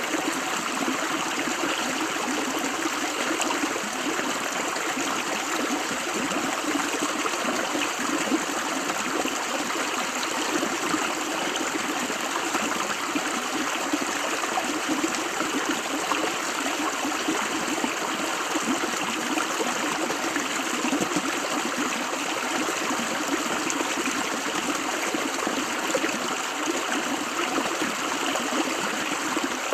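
A river or stream of running water flowing steadily, a continuous rushing and burbling with no pauses.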